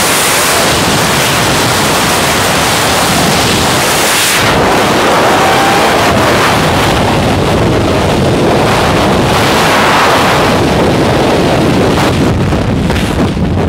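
Loud, steady wind buffeting the camera microphone during a tandem skydive freefall. The rush eases slightly in the last second.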